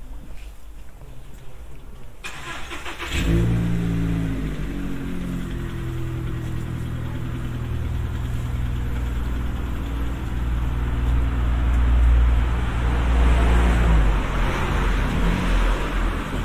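A car engine starts up about three seconds in, then keeps running steadily, growing somewhat louder past the middle.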